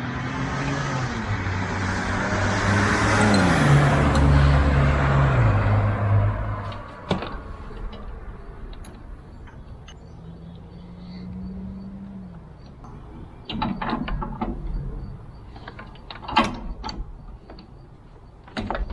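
A vehicle drives past: its engine noise swells to a peak about four seconds in, drops in pitch as it goes by, and fades. Later a brief faint hum and several sharp clicks and knocks follow.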